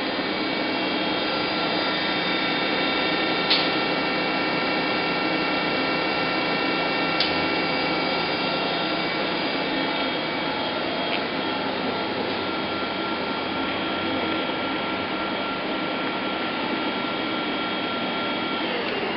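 Daewoo Lynx 210LC CNC lathe spindle running at 2000 RPM: a steady whine with several held tones over a hiss, with two faint ticks a few seconds apart early on.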